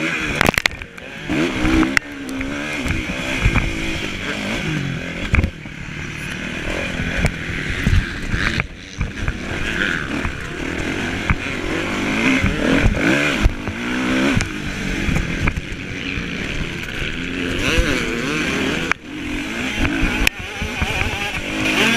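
Motocross bike engine heard from onboard, revving up and down again and again as the rider accelerates and shifts, with other bikes close by. Wind buffeting and sharp knocks from the track break in throughout.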